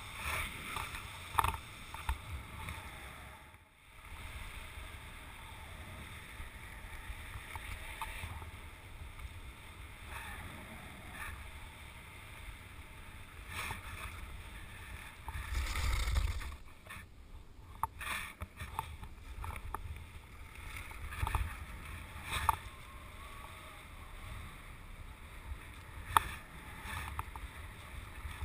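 Wind rumbling on the microphone and skis sliding over snow-covered ice while kite skiing, with a stronger gust about two-thirds of the way through and scattered clicks and knocks from the kite bar and gear.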